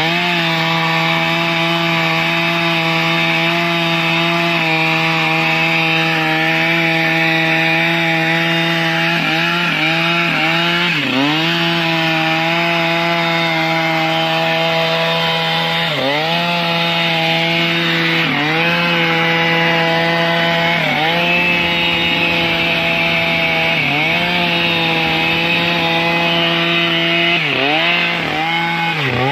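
Stihl MS 881, a large 121.6 cc two-stroke chainsaw, running flat out through mahogany wood. Its steady high engine note sags sharply and recovers several times in the second half, as the chain bogs under load in the cut.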